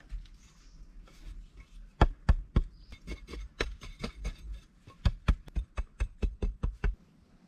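A run of sharp knocks or blows, several a second, starting about two seconds in and ending shortly before the end.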